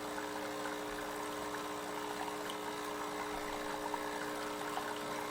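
Breville Barista Express espresso machine's pump humming steadily while hot water pours from the machine into a cup.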